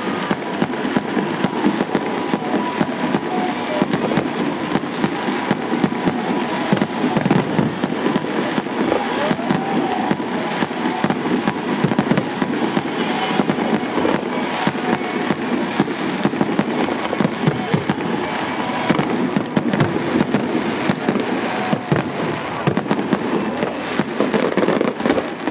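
Aerial fireworks display: shells bursting in a dense, unbroken string of bangs and crackles, many in quick succession.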